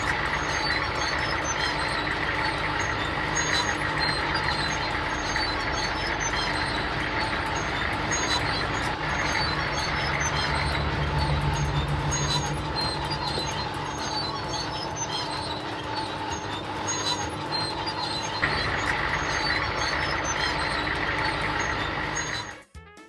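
Cartoon sound effect of a road roller's engine running steadily, a dense mechanical noise that cuts off suddenly near the end.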